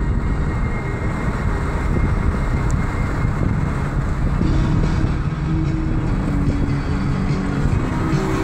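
Car driving along a road: steady rumble of engine and tyres with wind noise, heard from inside the car.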